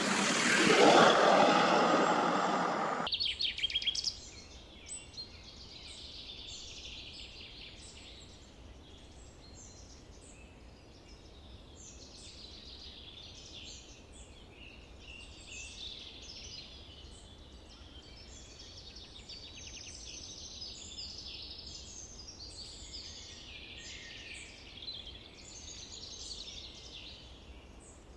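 Small songbirds chirping and singing, many short overlapping calls and trills, over a faint low hum. For the first three seconds a loud rushing noise covers everything and cuts off suddenly.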